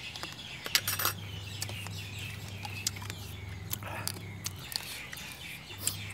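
High chirps falling in pitch, repeating over and over, with a few sharp clinks of metal spoons against a plate about a second in and near the end, over a low steady hum.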